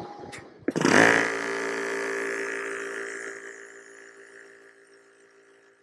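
A Yong Heng high-pressure PCP air compressor switched on with a click and starting up suddenly and loudly, its motor running at a steady pitch. The sound then fades evenly to near silence over a few seconds.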